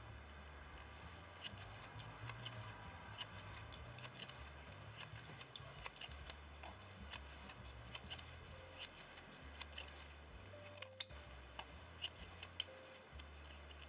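Faint, irregular small clicks and ticks from a plastic tatting shuttle and its thread as double stitches are worked and pulled snug, over a steady low hum.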